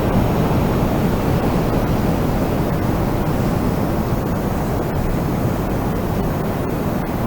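Wind blowing steadily: a constant, low, rushing noise with no distinct gusts.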